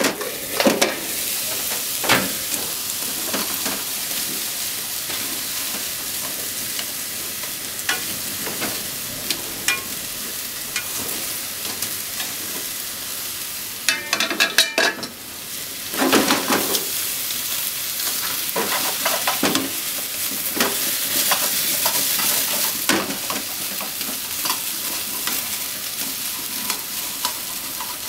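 Sliced potatoes and onions sizzling in a frying pan, with repeated clicks and knocks as they are stirred and turned with chopsticks against the pan; a quick run of clicks a little past halfway, then a louder clatter.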